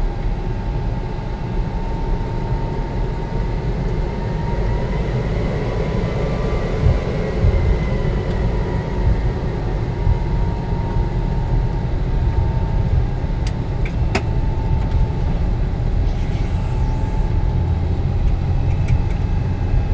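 Vickers VC10's four Rolls-Royce Conway engines running while the aircraft taxis: a steady heavy rumble with a whine that rises and falls gently several seconds in. Two sharp clicks come about two-thirds of the way through.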